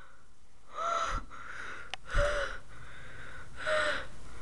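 A person gasping three times, about a second and a half apart, breathy in-breaths with a short catch in the voice at the start of each, in fright. Low thumps come with the first two gasps.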